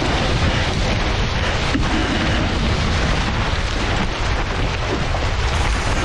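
Strong wind blasting the microphone over the rush of water and spray along the hulls of a Tornado catamaran sailing fast. A steady, loud, unbroken noise with a heavy low rumble.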